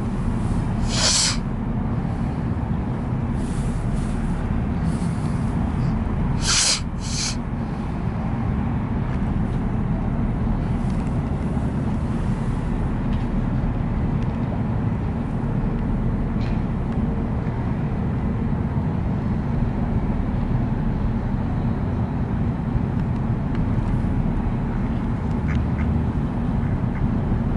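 A mallard quacking in a few short bursts, once about a second in and twice in quick succession around seven seconds, over a steady low rumble.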